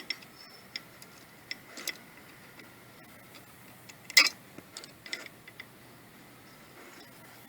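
Scattered small mechanical clicks and taps, with one sharper click a little past the middle.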